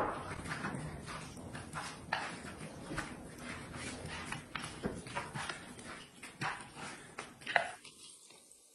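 Chopsticks clicking and scraping against a ceramic plate as wide noodles are tossed and mixed with sauce: a run of quiet, irregular clicks that stops near the end.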